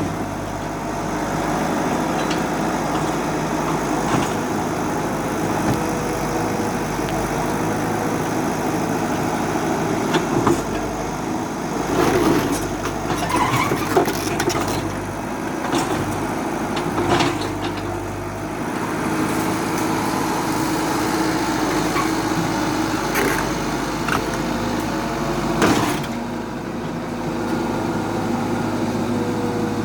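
Excavator's diesel engine running steadily, with scattered knocks and clanks through the middle.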